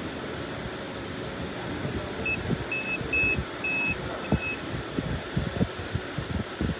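A short run of about five high electronic beeps of uneven length, from an electronic device in or at a car, over steady background hum and scattered light knocks.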